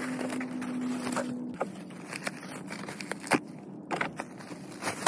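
A plastic bag rustling and crinkling as it is handled and lifted away, with a steady low hum, both stopping about a second and a half in. A few light scattered knocks and clicks follow.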